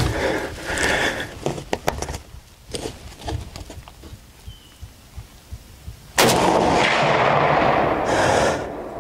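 A hunting rifle fired once about six seconds in: a sudden, very loud shot whose blast stays loud for about two seconds before falling away. A few sharp clicks in the first two seconds.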